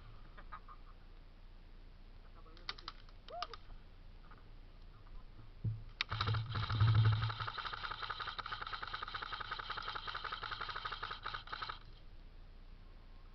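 Airsoft electric gun firing on full auto: a rapid, even stream of clicks lasting about six seconds, starting a little after midway. A few sharp clicks come earlier.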